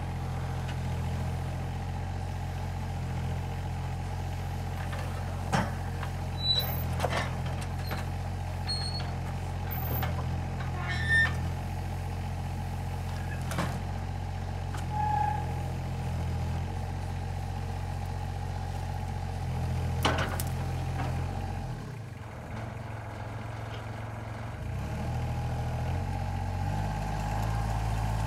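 Alstor 834 mini forwarder's three-cylinder diesel running steadily under hydraulic crane work, with a steady whine over the engine and several sharp knocks as birch logs are grabbed and laid on the load. The engine note drops for a few seconds near the end, then picks up again.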